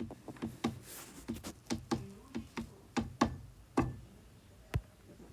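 A run of irregular sharp clicks and knocks, about three a second with uneven spacing, loudest in the middle.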